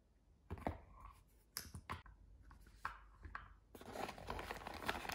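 Unboxing handling sounds: a few sharp taps and knocks on the cardboard box and its paper insert, then about four seconds in a longer stretch of rustling packaging as the USB cable is taken out of its tray.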